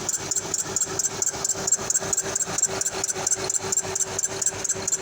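2005 Honda Odyssey's 3.5-litre V6 running with a fast, even ticking clatter, about seven a second, over a steady tone. It is a noise that appeared after the alternator was worked on, which the owner puts down to the serpentine belt drive.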